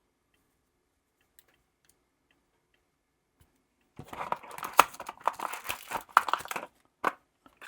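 Near silence with a few faint clicks, then about halfway through, packaging crinkling and rustling in a quick run of sharp crackles as an unboxed charger is unwrapped.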